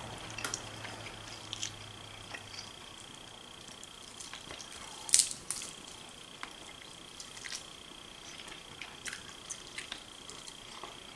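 Small wet clicks and smacks of fingers pulling meat off a cooked squirrel and of eating it, with one louder smack about five seconds in.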